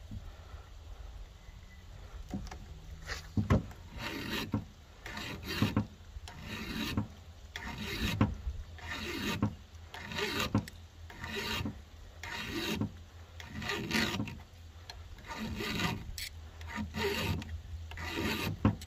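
Flat file rasping back and forth across a chainsaw chain's raker (depth gauge) through a depth-gauge guide, lowering the rakers. The strokes come steadily at about two a second, starting a few seconds in, with a short pause about three-quarters of the way through.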